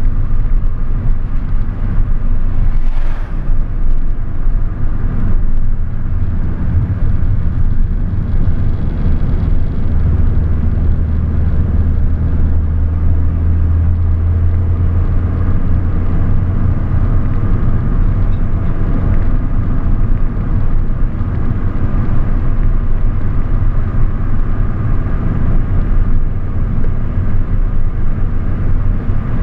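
A car driving along with a steady low rumble of engine and road noise, swelling for a while in the middle, and a brief hiss about three seconds in.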